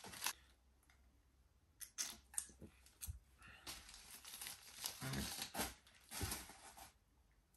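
Gift packaging rustling and crinkling in several short bursts as a necklace is handled and taken out of its wrapping.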